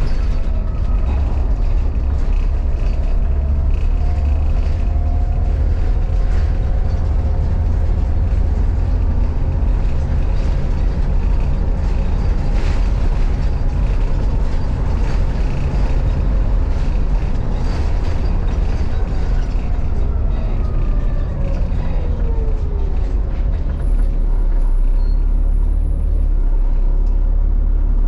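Interior noise of a Volvo B7 Gemini bus on the move: a steady, heavy low diesel rumble with road noise. About three-quarters of the way through, a whine falls in pitch, and the low engine note shifts soon after.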